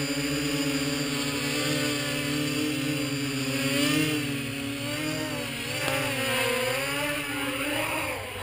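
Mini quadcopter's brushless motors and propellers buzzing in flight, the pitch rising and falling as the throttle is worked, with a drop in pitch near the end.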